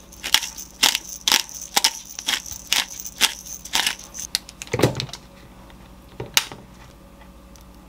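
Hand-twisted pepper grinder grinding peppercorns: crunching clicks at about two a second for some five seconds, then one sharp tap.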